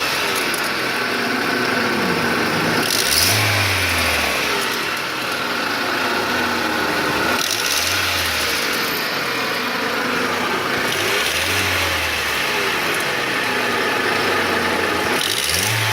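Car engine running and being revved briefly about every four seconds, four times. The engine has a knock.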